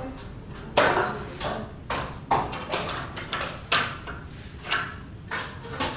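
Construction work: an irregular series of sharp knocks and clatters, roughly two a second, like hand tools striking on a building site.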